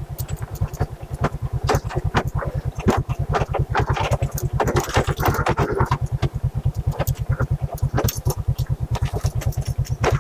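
Motorcycle engine running at low revs with a steady, even pulse while the bike rolls down a steep, rough dirt slope with the brake held. Frequent clicks and rattles from the bike and loose stones over the rough ground.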